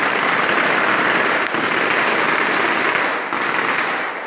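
Fireworks: a dense barrage of rising silver spark streams giving a continuous crackling hiss, with one sharper crack about a second and a half in. It thins out and grows quieter near the end.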